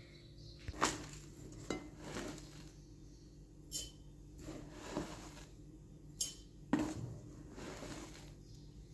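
Kitchenware clinking and knocking around a glass mixing bowl on a kitchen scale as ingredients are put into it: about seven separate taps and knocks, the sharpest about one second and seven seconds in.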